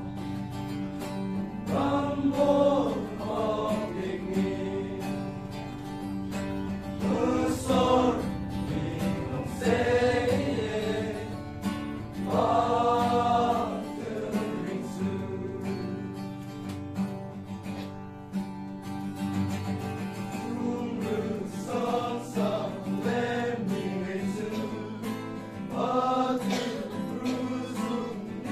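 Male voice choir of young men singing a Christian song together, swelling louder on several phrases.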